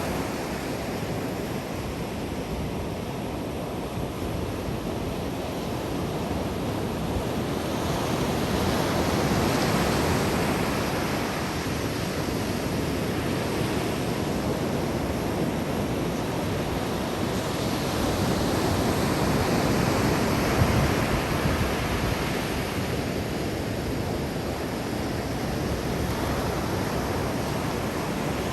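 Ocean surf breaking and washing up a sandy beach as a steady rush, swelling louder twice as waves come in.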